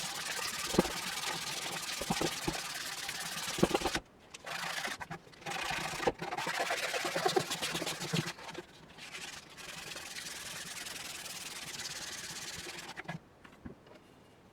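Abrasive rubbing on the rusty hand-forged iron head of a pick-hoe, in stretches of a few seconds with short pauses. A few light knocks come in the first few seconds.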